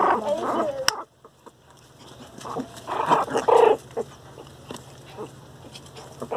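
Pinscher puppies squabbling, growling and yapping in two bouts: one at the start that breaks off about a second in, and a louder one around three seconds in.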